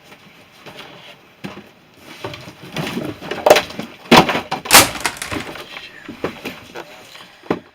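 A run of irregular clattering knocks, loudest a few seconds in, like hard plastic objects being handled and set down.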